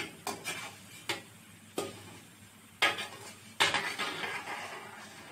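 Besan sev deep-frying in hot oil in a metal kadai, sizzling, with about six sharp knocks spread through it. The sizzling grows louder about three and a half seconds in.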